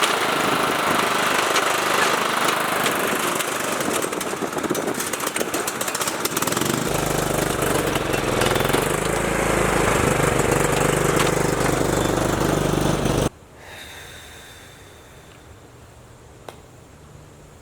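Riding lawn mower engine running steadily while mowing; about seven seconds in a deeper low hum joins the engine note. About thirteen seconds in the sound cuts off abruptly, leaving only a quiet background.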